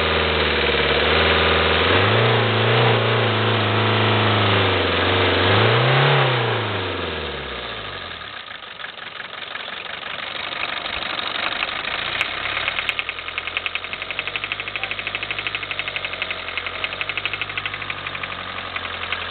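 Toyota Corolla 1.8 D's four-cylinder diesel engine revved up and down for about six seconds, then dropping back and settling into a steady, rhythmic knocking tick-over. The knock comes from an injector whose nozzle is seized open, so fuel enters unatomised and ignition is delayed.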